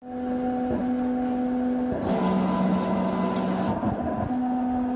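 Intro sound effect under a smoke logo reveal: a steady low hum, joined about two seconds in by a loud rushing whoosh that lasts about a second and a half. The hum drops lower during the whoosh and comes back at its first pitch near the end.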